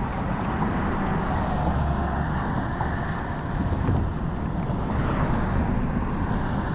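Steady rush of road traffic from cars crossing the adjacent highway bridge, with a constant low rumble underneath.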